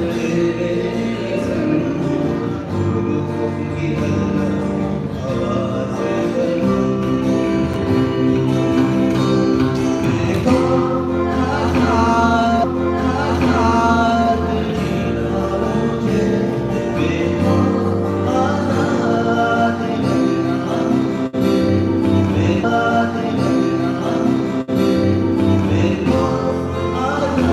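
A man singing a song into a microphone while strumming an acoustic guitar.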